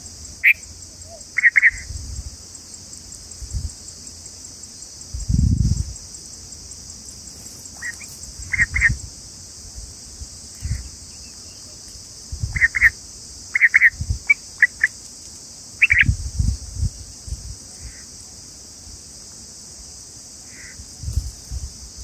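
Bulbuls at the nest giving short, high chirps in scattered clusters over a steady high hiss, with a few low thumps.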